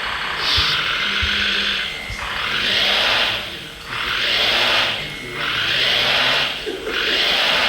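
Whirring of an RC construction model's electric drive motor and gears in about five surges roughly a second and a half apart, each rising and falling as the model starts and stops.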